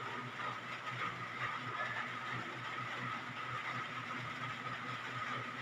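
Steady background hum and hiss with faint high tones, no distinct events.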